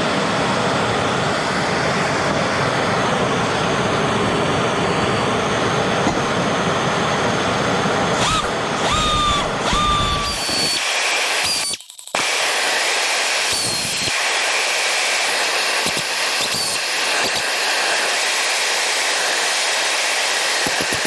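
Pneumatic angle grinder's air motor running flat out, kept running to heat it up. A few short squeals come through about eight to ten seconds in, and after a brief cut-out near the middle it runs on with less low rumble.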